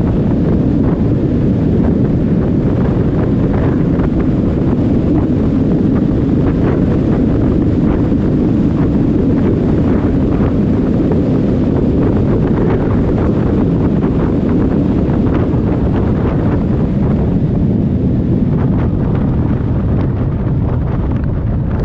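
Wind rushing over the microphone of a moving motorcycle, a steady dense low rush with vehicle noise underneath.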